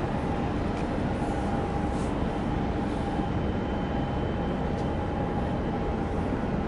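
Steady low rumble of a large container ship's machinery as the ship moves past, with a faint steady hum on top.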